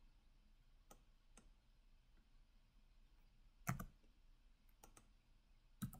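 A few sparse, isolated clicks from computer input at a desk over near silence, the clearest a quick double click just after halfway and another sharp click at the very end.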